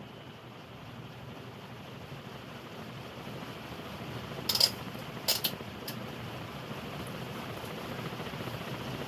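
48-inch Moss Caribbean Breeze ceiling fan running up to high speed, a steady rush of air from the blades growing gradually louder. Its bearings are dry and noisy. There are a couple of sharp clicks about four and a half and five and a half seconds in.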